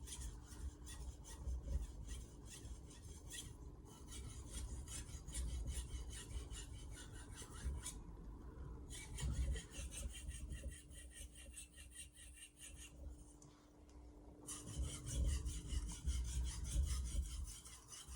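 Stainless steel knife blade stroked back and forth on a Naniwa 2000 whetstone with slurry, a quick, repeated scraping rasp that pauses twice briefly.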